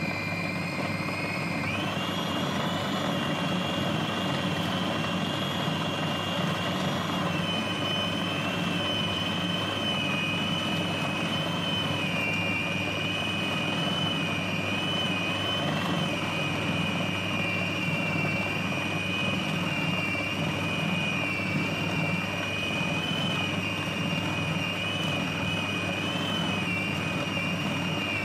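A 450 W Siemens food processor running continuously, its blade grinding raw pork into a smooth paste. The motor's whine steps up in pitch about two seconds in, then holds steady with slight wavers.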